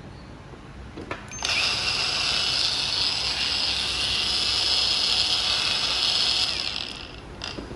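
Cordless power tool motor switched on at its slow speed setting, running as a steady high whine for about five seconds, then stopping. Switch clicks come just before it starts and after it stops.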